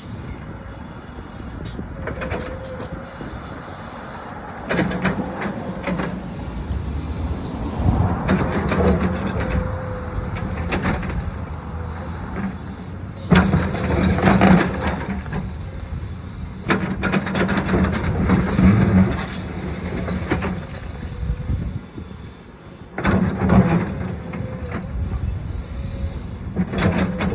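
Backhoe's diesel engine running and revving under load, with repeated crashes and rumbling as cinder block wall sections break and fall. The loudest crashes come about halfway through.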